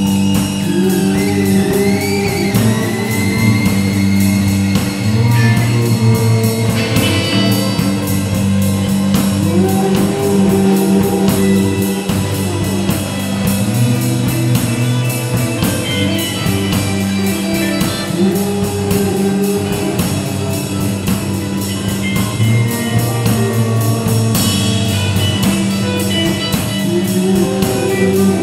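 Live improvised band jam: electric bass repeating a riff under a steady drum-kit beat, with guitar and electronic loops on top. A few sliding high notes come in near the start.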